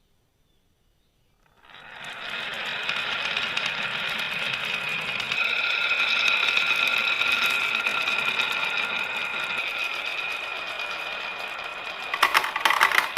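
Marbles rolling down a marble run track: a steady rolling sound with a ringing tone that starts about one and a half seconds in, turning into fast clattering clicks near the end.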